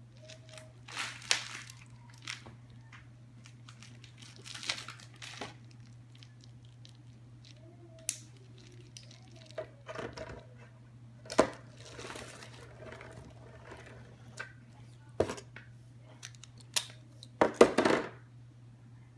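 Packaging being handled and crinkled during an unboxing: irregular rustles and crackles of plastic and cardboard, with the loudest burst of crinkling near the end, over a low steady hum.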